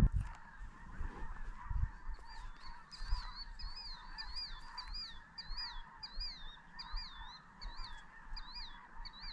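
A bird calling over and over, about two short, high, rising-and-falling whistles a second, starting about two seconds in, over a steady hiss.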